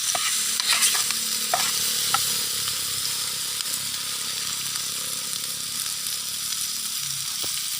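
Chopped chillies sizzling as they fry in Blue Band margarine in a pan, a steady hiss with a few sharp clicks in the first two seconds.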